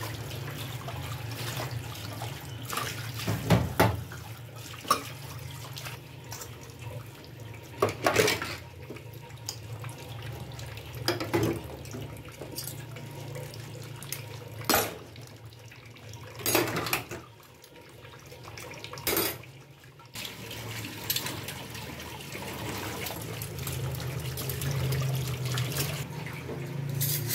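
Tap water running into a stainless-steel kitchen sink while dishes are washed by hand, with occasional clinks of steel spoons, plates and pots knocking together.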